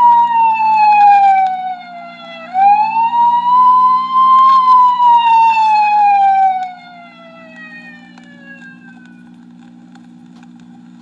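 Wailing siren played from a vinyl sound-effects record. Its pitch falls slowly, swoops back up about two and a half seconds in, peaks, then falls again and fades out after about seven seconds, over a steady low hum.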